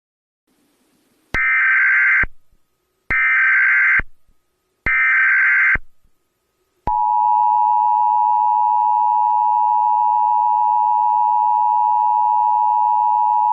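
US Emergency Alert System tones: three short bursts of SAME header data about a second and a half apart, then, about seven seconds in, the steady dual-tone EAS attention signal (853 and 960 Hz) begins and holds.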